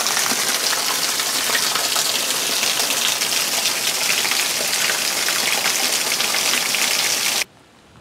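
Heavy downpour, with runoff pouring off the roof edge in a stream onto the ground: a loud, steady hiss of rain that cuts off abruptly near the end.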